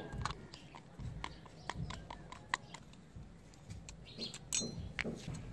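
Irregular small metallic clicks and taps as a screwdriver works on the screws of a Milwaukee Hackzall's rusty aluminium gear housing and its metal parts are handled.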